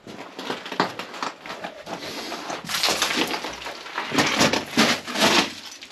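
Footsteps crunching and scraping over loose broken rock, with stones clattering; the crunching gets busier and louder about three seconds in.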